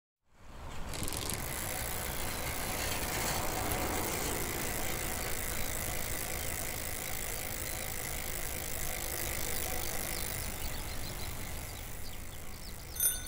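A bicycle being ridden, its chain and freewheel ratchet clicking and rattling steadily. Near the end a bell rings twice, brightly.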